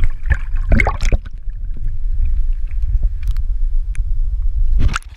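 River water rushing and sloshing around an action camera held underwater, heard as a heavy, muffled low rumble. A flurry of splashes comes in the first second as a rainbow trout is released from the hand, and another splash comes near the end.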